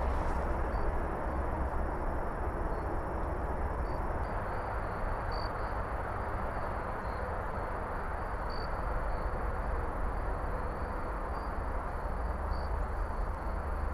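Steady low rumbling outdoor background noise, with a faint high steady whine and a few faint blips over it.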